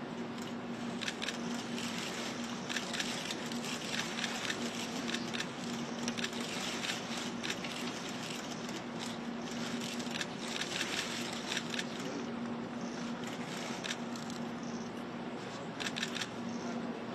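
Camera shutters clicking in repeated rapid bursts over a steady background hiss with a low hum.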